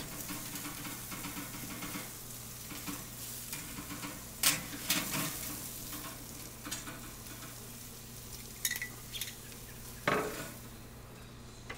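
Sliced zucchini, squash and onion sizzling in a stainless steel grilling basket over a charcoal fire. Metal tongs stir them, scraping and clicking against the basket, with the sharpest clicks about four and a half seconds in and again about ten seconds in.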